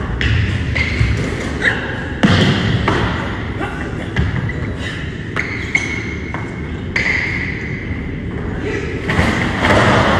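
Thuds and knocks echoing in a large gymnasium, the loudest about two seconds in, as a person runs on the hardwood floor; near the end a yellow plastic trash barrel tips over and rolls across the floor with a noisy clatter.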